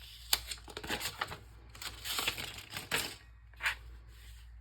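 Packaging being handled as a new Kindle e-reader is unwrapped: several sharp clicks and short scraping, rustling stretches of cardboard and plastic.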